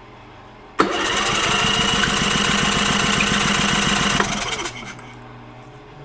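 Electric starter of a Champion 4500-watt dual-fuel inverter generator cranking the engine over for a compression test, starting about a second in and stopping after about three and a half seconds, with an even pulse from each compression stroke. The engine does not fire; the valve clearance has just been set to 3 thou.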